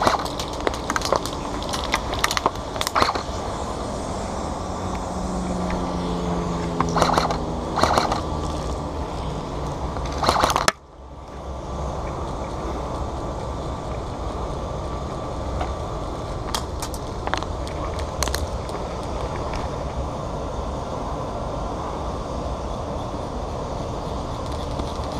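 Scattered sharp clicks and snaps of airsoft guns firing, over a steady rough rustle and scrape of a player moving on dirt and gravel. A few louder bursts come in the first half, and the sound drops out briefly about eleven seconds in.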